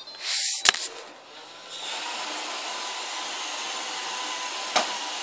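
iRobot Roomba robot vacuum starting up in Clean mode: a brief rush and a sharp click in the first second, then its vacuum motor and brushes running steadily with a faint whine. A single knock near the end.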